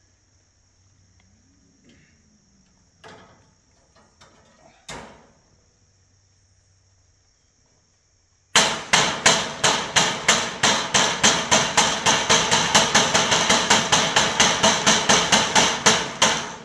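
Hammer beating the sheet-metal cladding of a homemade deer stand flat: a few scattered knocks, then from about halfway a fast, even run of loud blows, about four or five a second. A steady high insect drone sounds throughout.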